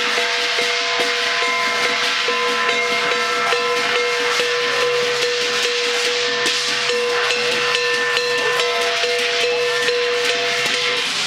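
Chinese lion-dance percussion band playing continuously: steady drum strokes under constant clashing cymbals, with a held ringing tone over them.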